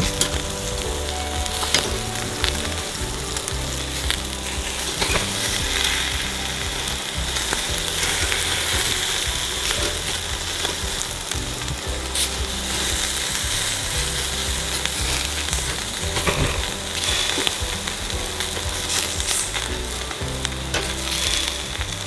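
Meat sizzling on a charcoal grill's wire grate over glowing briquettes: a steady fatty hiss with scattered small crackles and pops.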